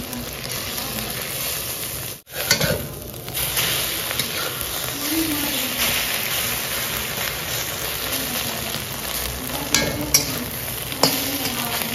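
Six beaten eggs frying for an omelette in a kadhai (Indian wok), sizzling steadily, with a spatula scraping and clicking against the pan now and then. The sound breaks off briefly about two seconds in.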